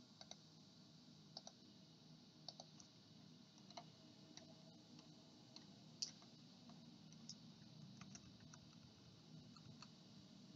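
Faint, scattered computer mouse clicks, about one a second with one a little louder about six seconds in, over near-silent room tone.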